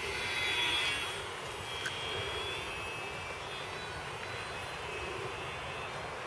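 High-pitched whine of a scratch-built ultra-micro RC plane's small electric motor and propeller in flight. It is loudest about half a second in as the plane passes close, then fades and wavers in pitch as it flies away.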